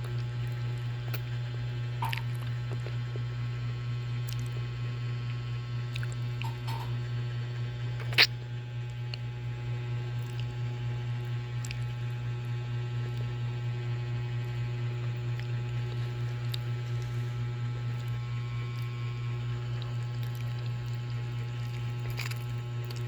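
A steady low electrical hum, with faint clicks and mouth noises of someone eating durian, and one sharp click about eight seconds in.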